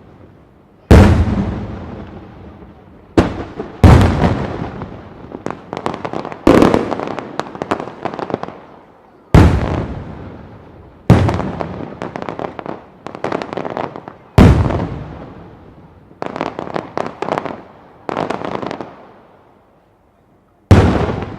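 Large fireworks aerial shells bursting: about eight deep booms, each trailing off, several followed by dense crackling, with a brief lull before one last boom near the end.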